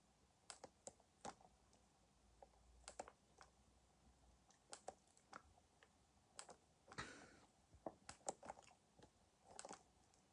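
Near silence broken by faint, irregular clicks and taps, a dozen or so scattered at uneven intervals, with two short soft rustles about seven and nine and a half seconds in.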